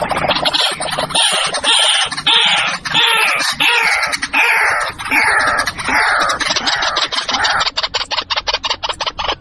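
White-breasted waterhen calling: a loud run of repeated falling notes, about two a second, that turns into a fast rattle of clicks near the end.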